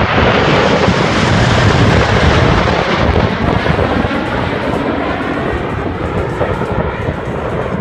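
A fixed-wing airplane flying past. Its loud engine noise peaks in the first couple of seconds, then slowly fades as it moves away.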